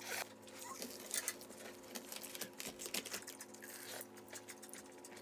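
Close-up eating sounds: an irregular string of small clicks, smacks and crunches from chewing and utensils, over a faint steady hum.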